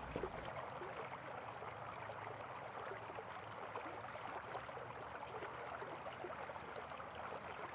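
Faint, steady rushing noise with no pitch or rhythm.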